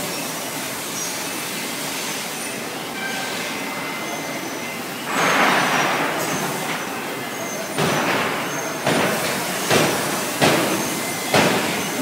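Steady factory-floor din, with a louder rush of noise about five seconds in, then five sharp clatters about a second apart over the last four seconds.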